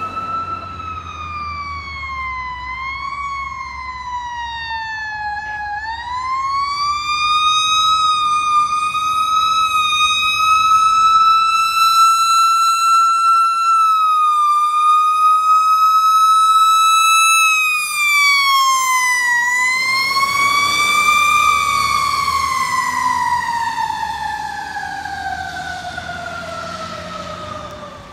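Fire engine siren: a single wailing tone that wavers, climbs and is held high through the middle, where it is loudest as the truck passes, then winds down in one long, slow fall near the end.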